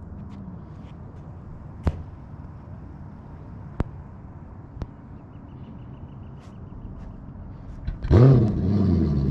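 Boat motor running steadily as the boat moves over the lake, with a few sharp clicks. Near the end comes a louder burst whose pitch swings up and down.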